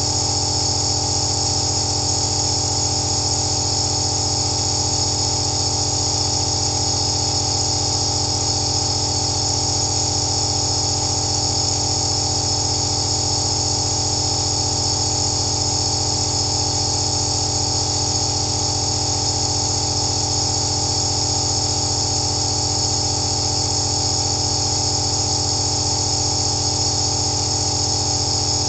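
Compressor nebulizer running steadily: a constant motor hum under a high hiss of air and mist through the medication cup and face mask.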